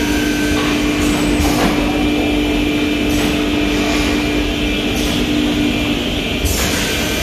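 Double-end woodworking boring machine running: a steady motor hum over continuous machine noise, the hiss rising and falling a few times as the machine works, the hum cutting off about six seconds in.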